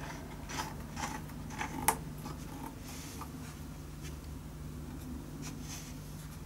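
Small clicks and taps of hands working a metal clamp and small wooden cleats against a cello top, several in quick succession with one sharper click about two seconds in, then fainter taps, over a steady low hum.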